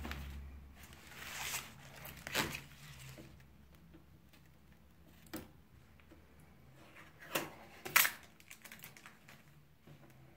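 Clear plastic packaging rustling and crinkling as it is handled, with scattered sharp taps and clicks. The loudest tap comes about eight seconds in.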